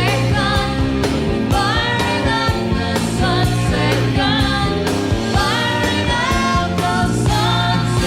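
Live pop-rock and jazz-fusion band performance with a female lead vocal over bass, drums and keyboards, heard from an FM radio broadcast taped onto cassette.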